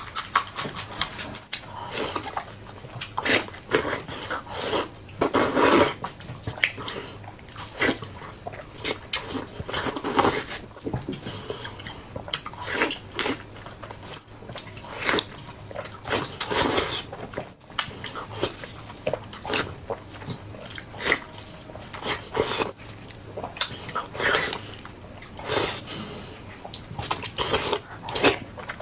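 Close-miked eating sounds of a person chewing and biting braised pork belly and chili peppers: irregular wet smacks and crunches, with a few louder bouts.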